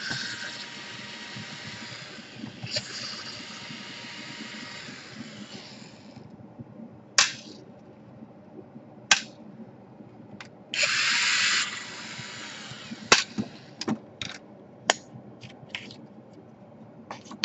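Small electric screwdriver running steadily for several seconds as it backs out laptop screws, then a second short run of about a second midway. Sharp clicks and knocks come between the runs as screws and parts are handled and set down.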